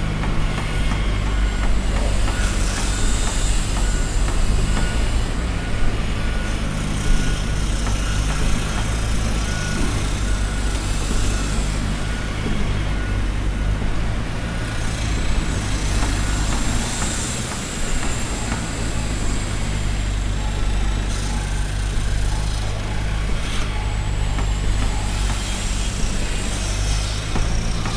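Heavy construction machinery engine running steadily with a constant low hum, under a wide noisy layer of work noise.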